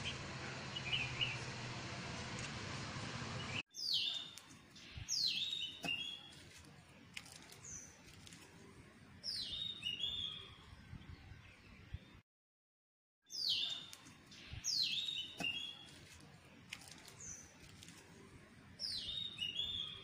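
Bulbul singing: short phrases of clear whistled notes that sweep down in pitch and end in a few quick stepped notes, repeated every few seconds. The first few seconds are a hissy recording with faint chirps. Then the sound cuts abruptly to a cleaner recording, which breaks off to a second of silence midway and starts over with the same phrases.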